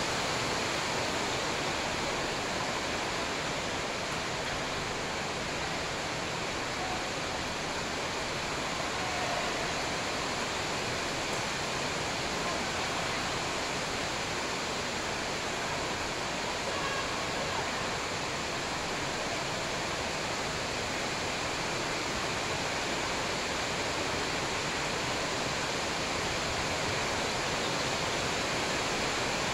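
Steady, even rushing noise with no distinct shuttlecock hits or voices standing out.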